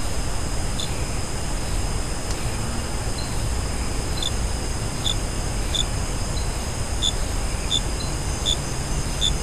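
Night-time outdoor ambience through a trail camera's microphone: a steady hiss and faint high whine, with short high chirps from a small calling animal repeating roughly once or twice a second.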